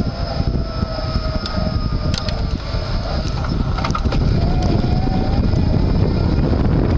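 Heavy wind noise on the microphone while riding an electric-assist bicycle, with the faint whine of its front hub motor drifting slightly in pitch and a few light clicks.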